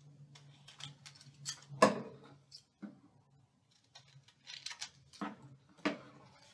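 Thin magazine-paper cutout being handled and pressed onto a paper print: a series of short rustles and crinkles, the loudest about two seconds in.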